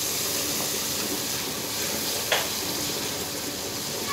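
Onion-tomato masala sizzling in a frying pan while it is stirred with a wooden spatula, a steady hiss, with one sharp knock about two seconds in.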